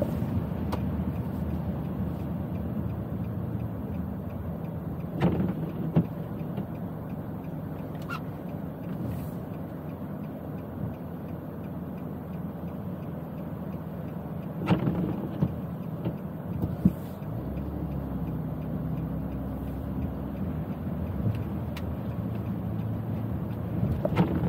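Car driving on rain-wet city streets: a steady low rumble of engine and tyre noise, with a few brief knocks about five and fifteen seconds in.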